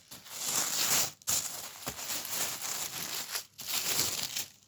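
Packaging crinkling and rustling in stretches as a gift parcel is unwrapped by hand.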